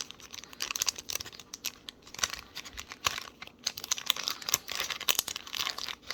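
Sticker-pack packaging crinkling and rustling with irregular sharp crackles as a stack of sticker sheets is slid back into it.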